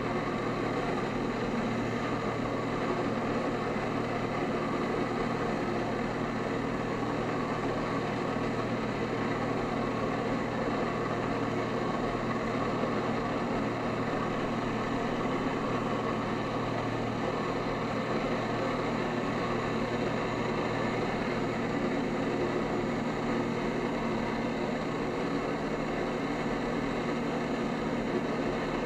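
Jet ski engine running steadily at a constant pitch, pumping water through the hose to a flyboard, with the rush of the board's water jets and spray.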